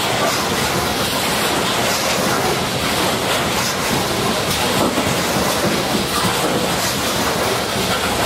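Coal train's cars rolling past at speed: a steady rushing rumble with the clatter of wheels over the rail joints.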